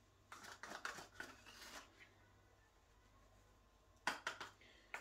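Faint rustling and scraping as ground turmeric is spooned and sprinkled over raw vegetables and meat in a metal roasting tray. It comes in two short spells, one lasting over a second near the start and a briefer one near the end.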